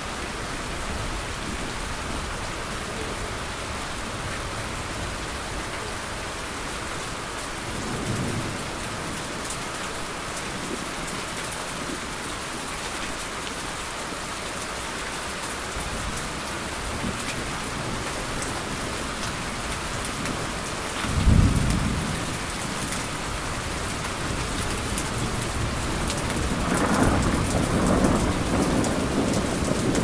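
Steady rain with thunder: a low rumble about eight seconds in, a loud thunderclap a little past twenty seconds, and longer rolling thunder near the end.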